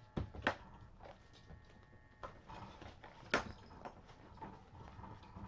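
Sharp knocks and light taps as kittens and toys move on a fabric floor mat, over the faint steady buzz of a small battery-powered Nanobug toy bug, which stops about two seconds in.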